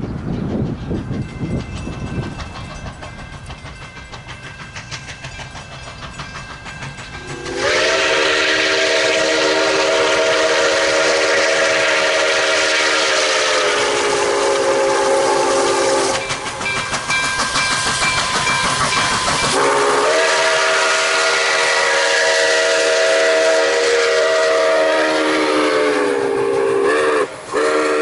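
Steam locomotive whistle of Nickel Plate Road 2-8-4 No. 765 blowing a loud multi-note chord in long blasts. The first blast starts about seven seconds in and is held for about eight seconds. After a few seconds of the train's rumble and rail clatter, a second long blast sounds, broken off briefly near the end before sounding again.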